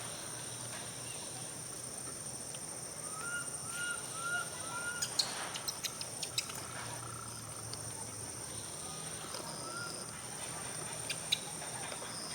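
Faint, short chirping animal calls, four in quick succession about three seconds in and a few more later, with scattered clicks and a steady high hiss underneath.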